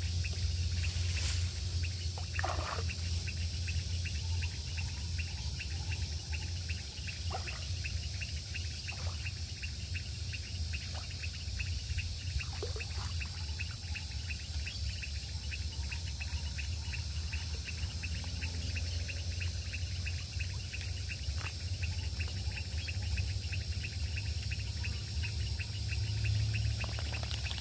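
Outdoor pond-bank ambience: insects trilling in a fast, even pulse, with a few short bird calls and a steady low rumble underneath.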